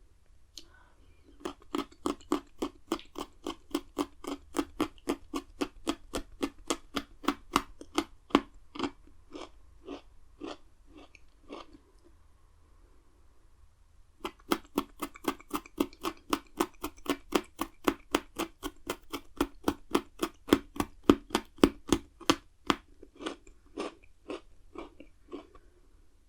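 Pocky chocolate-coated biscuit sticks being crunched and chewed close to the microphone: rapid crisp crunches, about three or four a second, in two long runs with a pause of about two seconds in the middle.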